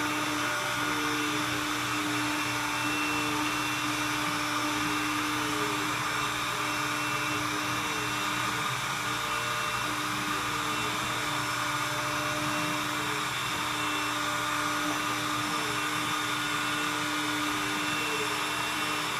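A WS-600 window-cleaning robot holds itself to the board with its suction fan and crawls across it. It makes a steady whir with a steady hum under it, and faint short sounds repeat a little more than once a second.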